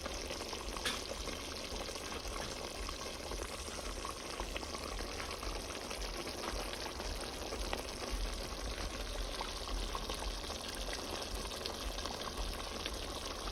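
Meat cooking in a pot on the stove: a steady hiss with occasional small pops.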